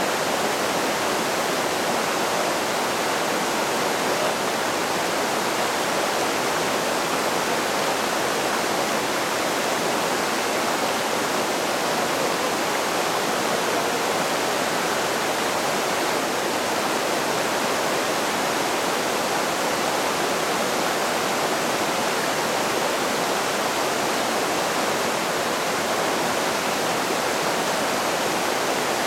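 Rocky creek rushing over boulders and small rapids: a steady, unbroken rush of water.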